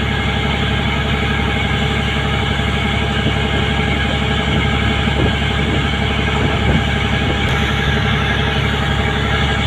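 A ship's engine running with a steady drone while under way, mixed with wind blowing across the microphone.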